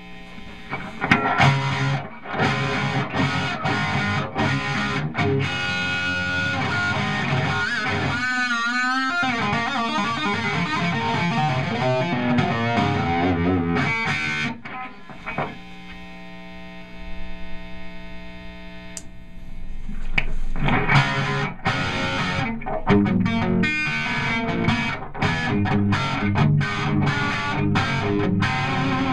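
Distorted electric guitar played through a Cameron amplifier head: picked riffs with a wavering vibrato bend about eight seconds in, then notes left ringing for several seconds before the riffing picks up again.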